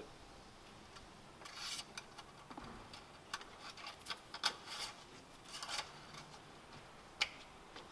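Scattered light clicks and scraping rubs of something being handled, with one sharp click near the end.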